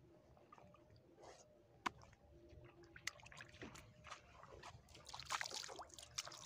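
Faint wet trickling and crackling on a wet tidal flat, with a few sharp clicks. From about five seconds in it turns into louder wet splashing and rustling as hands reach into a pile of freshly caught fish lying on the wet sand.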